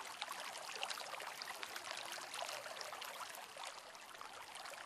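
Faint, steady background water sound: a hiss dotted with many small splashing drop-like ticks.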